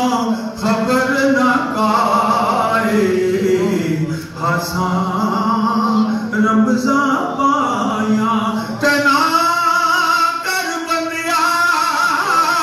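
A man singing unaccompanied devotional verse into a microphone. He sings long, wavering held notes in phrases broken by short breaths, about half a second and about four seconds in.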